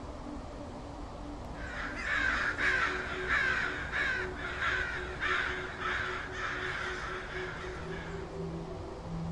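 Crow cawing: a run of about nine harsh calls, roughly one and a half a second, starting about two seconds in, over a low steady rumble.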